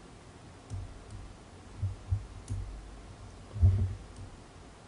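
Faint clicks and soft low thumps from an S Pen stylus tapping a Samsung Galaxy Note's touchscreen while the phone is held. The loudest is a soft thump about three and a half seconds in.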